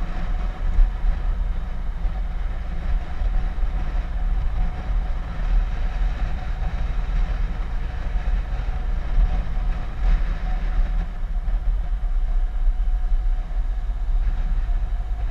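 Steady wind rush and low rumble of a touring motorcycle riding at road speed, heard from the rider's camera, with the engine's drone under the wind noise.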